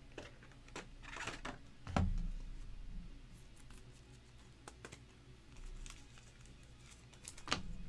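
Trading card and rigid plastic top loader being handled: scattered light clicks, scrapes and plastic rustles, with a soft knock about two seconds in.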